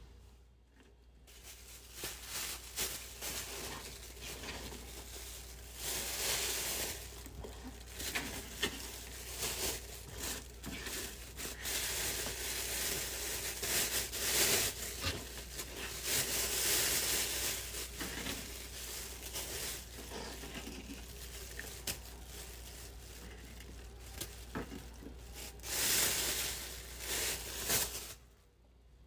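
Thin plastic bag crinkling and rustling in irregular swells as green pepper strips are gathered into it and the bag is handled.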